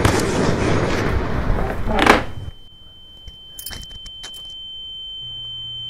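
A loud rushing noise for about two seconds, then a steady high-pitched ringing tone that slowly grows louder: a ringing-in-the-ears sound effect of the kind used for a stunning blow.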